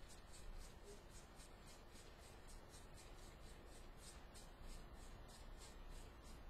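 Socket ratchet clicking faintly in an even series, about three to four clicks a second, as it is swung back and forth on a fastener.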